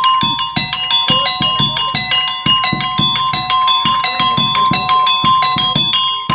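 Street music of quick ringing metal-key notes struck with mallets over a drum beating about four times a second, with one steady high tone held underneath: the accompaniment a monkey-show musician plays on his instrument cart.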